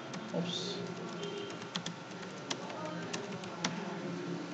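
Computer keyboard typing: scattered key clicks at an irregular pace, over a faint steady hum.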